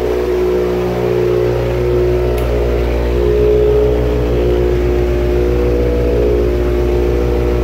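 Subaru WRX's turbocharged flat-four engine idling steadily shortly after a cold start, heard near the exhaust.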